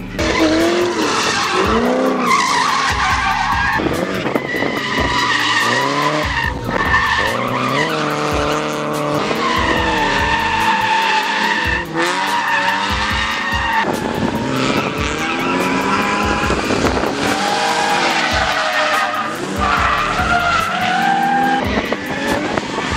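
Drift car engines revving up and down with tyres squealing through slides, continuous and loud.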